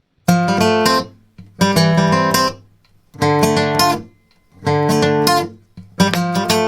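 Music: an acoustic guitar playing short strummed and plucked phrases of about a second each, with brief pauses between them.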